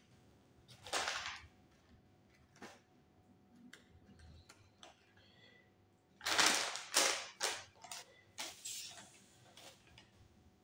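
Small plastic Lego pieces tipped and shaken out of their packet onto a table: short bursts of rustling and rattling, the loudest about six to seven seconds in, with scattered small clicks as the bricks are handled.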